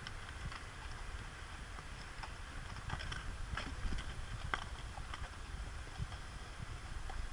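Horses' hooves striking rock and packed sand at a walk: irregular clopping, busiest a few seconds in, over a steady low rumble.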